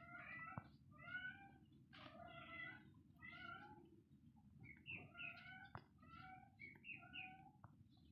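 Kittens meowing over and over, about ten short, faint calls.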